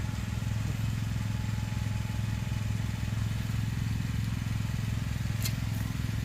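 Engine of the truck hauling a shed running steadily at low revs as it inches through a tight space, a deep even drone.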